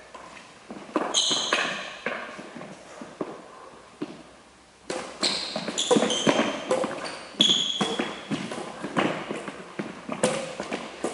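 Badminton rally: rackets striking the shuttlecock, with footfalls thudding and shoes squeaking briefly on the wooden court floor. Quieter for a moment about four seconds in, then a busy run of hits, steps and squeaks.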